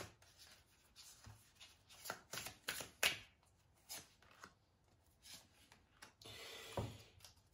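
Faint shuffling of a deck of oracle cards by hand, a run of short, irregular flicks. About six seconds in comes a longer rustle as cards are slid out and laid down on the spread.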